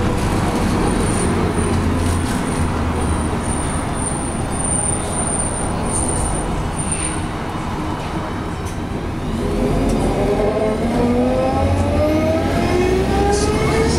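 Bus engine and road noise inside a moving city bus. About ten seconds in, the engine picks up and a whine rises steadily in pitch as the bus accelerates.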